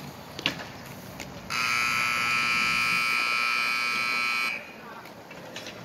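Rink scoreboard buzzer sounding one steady blare of about three seconds, starting and stopping abruptly, the signal for the end of the period. A single sharp knock comes just before it, about half a second in.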